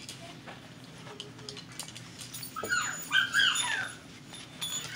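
A dog whining in a short run of high-pitched calls that slide up and down, about three seconds in.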